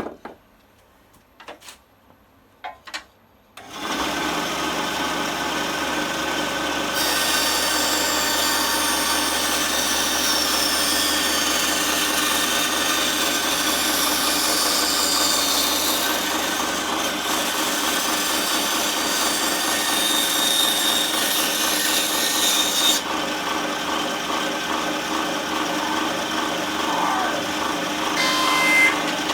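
A few clicks, then an Aldi Workzone small benchtop bandsaw starts about four seconds in and runs with a steady hum and whine. From about seven seconds in, for some fifteen seconds, it cuts through scrap wood, adding a harsh, noisy sawing sound, then runs on without cutting.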